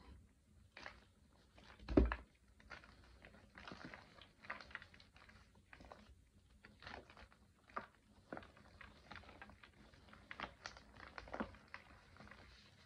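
Fresh blocks of chalk crunching and crumbling as they are squeezed and crushed in bare hands: a long run of short, soft crunches, with one louder crunch and thud about two seconds in.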